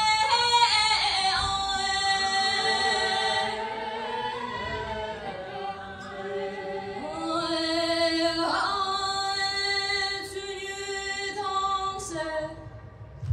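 A girl singing solo and unaccompanied into a microphone, in the style of Tibetan Lhamo opera: long held notes that bend and waver, in two drawn-out phrases with a short break about halfway through.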